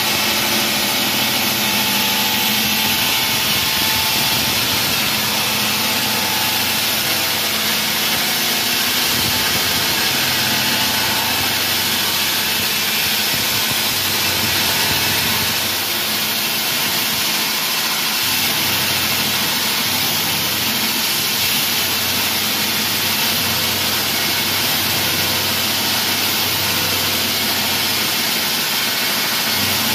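Wall saw running steadily, its blade cutting through the wall, a loud, even, hissing machine noise.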